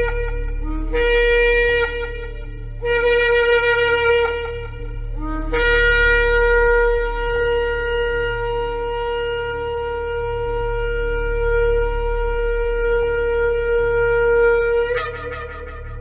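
Shofar blown in a few short blasts, each opening on a brief lower note that jumps up to the main tone, then one long steady blast of about nine seconds that ends with a sharp upward break near the end.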